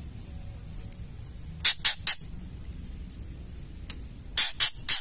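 White-rumped shama giving its harsh, rasping 'ketrek' chatter call: a quick run of three short scratchy bursts about one and a half seconds in, and another run of three near the end.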